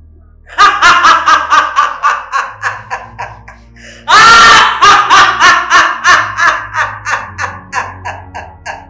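A woman laughing loudly in quick rhythmic "ha-ha" pulses, starting about half a second in. About four seconds in she breaks into a louder shriek of laughter, and the laughing then thins out into spaced pulses.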